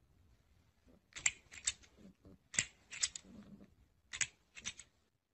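Sharp plastic clicks from a green plastic toy crocodile, coming in quick clusters of three or four, about every second and a half.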